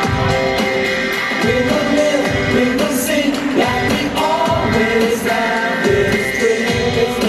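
Live pop-rock band with a singer's voice over a steady drum beat and bass guitar.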